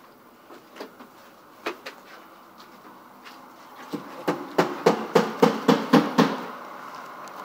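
A few scattered knocks, then from about four seconds in a rapid, even run of about ten loud knocks, three to four a second, each ringing briefly, stopping just after six seconds.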